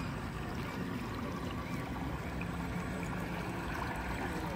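Steady trickling, splashing water: the wash of a radio-controlled model boat on the water.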